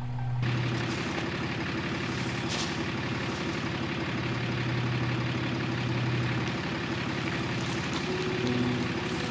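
Pickup truck engine idling steadily under a hiss of outdoor air, with a few brief faint rustles or scrapes.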